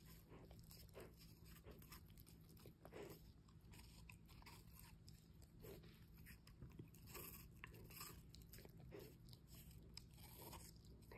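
A puppy biting and chewing a piece of raw apple: faint, irregular wet crunches, several a second at times, as the fruit breaks up in its mouth.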